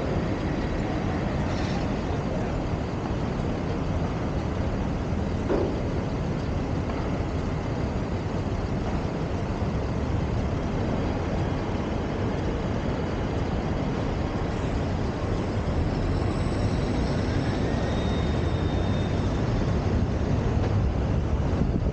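Steady rushing road and traffic noise of a car driving through city streets, picked up by a camera mounted on the car's roof. It grows a little louder near the end.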